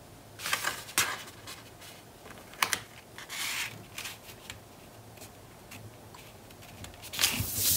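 Cardstock being handled and pressed flat by hand: paper rustling and fingers rubbing and sliding over the card, with a few sharp taps. The rustling comes in short spells, about half a second and one second in, again near the middle, and a longer one near the end.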